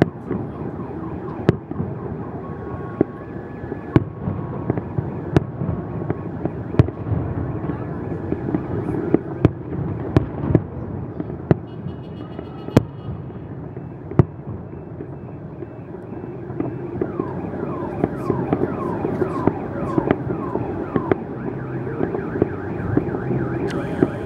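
Fireworks salute shells bursting in the distance: sharp bangs about every second or two over a steady background hum, with a run of short falling whistles about three-quarters of the way through.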